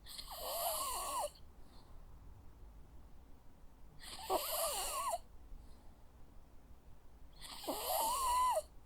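Jack Russell terrier snoring in its sleep: three snoring breaths, about four seconds apart, each lasting about a second with a wavering, whistling tone.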